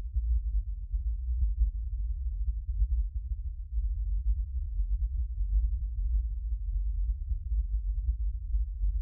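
A deep, low rumble with a rapidly fluctuating level and nothing higher above it: a sound-design drone, with no melody.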